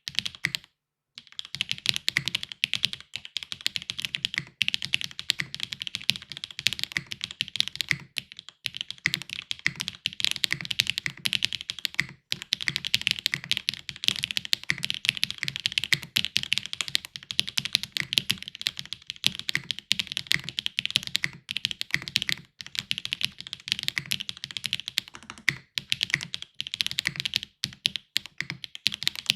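Continuous fast typing on a Neson 700e custom mechanical keyboard with HMX Cheese switches, GMK ABS keycaps and a foam-filled, gasket-mounted aluminium plate: a dense stream of key clacks. It starts after a short pause about a second in and has brief breaks around 8 and 12 seconds.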